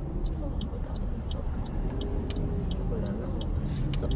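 Steady low rumble of a car heard from inside the cabin, with a regular high tick about three times a second and two sharp clicks, about two seconds in and near the end.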